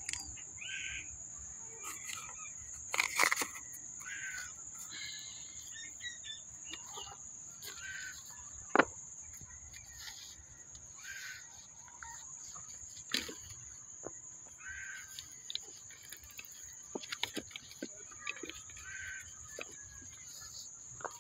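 Steady high-pitched insect drone with birds calling now and then. Every so often a sharp click or clink comes through as rope, carabiners and gear pouches are handled, loudest about 3, 9 and 13 seconds in.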